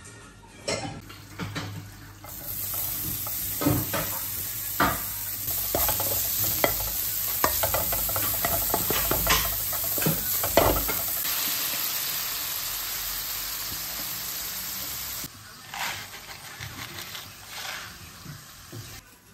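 Diced salami sizzling in a hot frying pan while a spatula stirs it, scraping and knocking against the pan now and then. The sizzling cuts off about fifteen seconds in.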